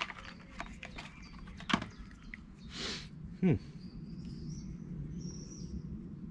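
Packaging and small items being handled: scattered clicks and taps, a brief rustle about three seconds in, and a short sound sliding down in pitch just after. From about four seconds on, birds chirp faintly over a steady low hum.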